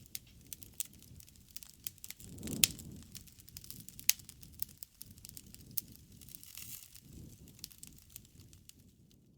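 Wood bonfire burning: a low rumble of flames under frequent sharp crackles and pops, with a louder pop about two and a half seconds in and another about four seconds in.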